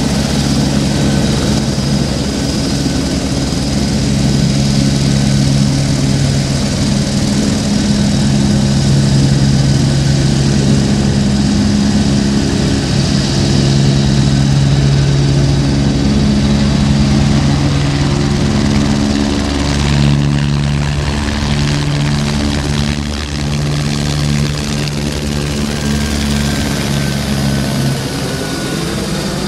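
Eurocopter AS355 F2 Ecureuil 2 TwinStar helicopter in flight: the steady beat of the main rotor under the high whine of its twin turboshaft engines. The rotor note shifts about two-thirds of the way in as the helicopter manoeuvres and passes close overhead.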